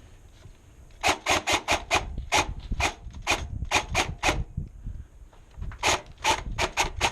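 Running footsteps crunching on gravel or dirt, about five quick steps a second, with a short break a little after the midpoint before they pick up again.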